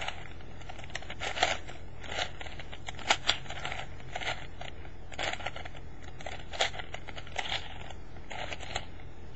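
Plastic clicks and clacks of a 4x4x4 Rubik's Revenge cube as its layers are turned by hand move by move through an algorithm, a short turn every half second or so, with two sharper clacks close together about three seconds in. A low steady hum lies underneath.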